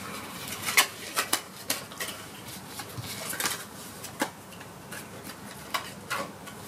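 A calico cat grooming itself, licking its paw and fur: a run of short, irregular wet licking clicks, about nine of them, with the loudest in the first two seconds.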